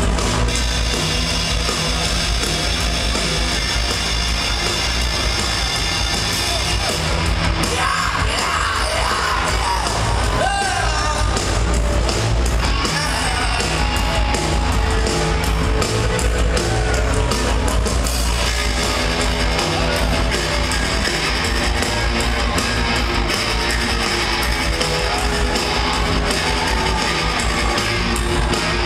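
Live rock band playing loud through the PA: electric guitars, bass and drums, with yelled singing over them, heard from among the audience.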